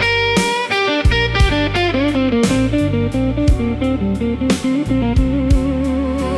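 Slow blues band instrumental: electric guitar playing a lead line over bass and drums, with a wavering, vibrato-held note near the end.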